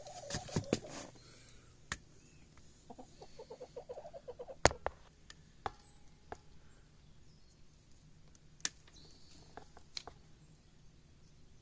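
Domestic chicken clucking in a quick run of short clucks, with several sharp knocks or taps scattered through, the loudest about halfway in.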